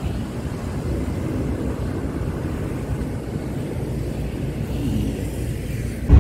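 Wind blowing on the microphone, a steady low rumble, over the wash of surf breaking on the shore.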